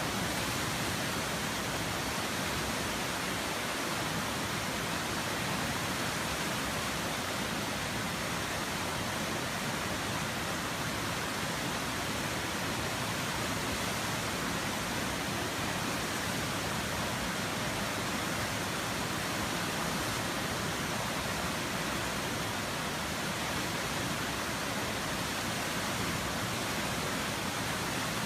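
River water flowing: a steady, even rush of moving water that does not change.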